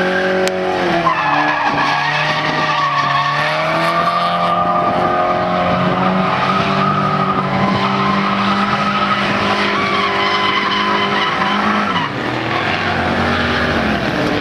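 Drift car engine held at high revs while the tyres squeal and skid. The engine note dips about two seconds in, holds fairly steady, then falls away near the end.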